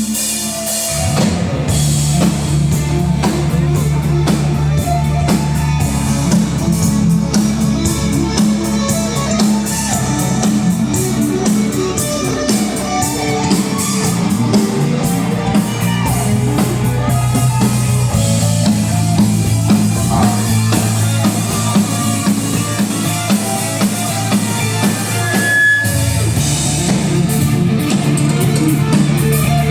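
A live band playing a rock groove at a sound check, with drum kit and guitar over sustained low bass notes. The music kicks in about a second in and plays on steadily.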